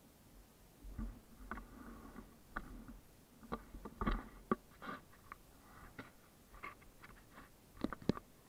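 Faint scattered clicks and knocks with a low rumble, the sharpest knocks about four seconds in and near the end: handling noise on a motorcycle-mounted camera, the engine off.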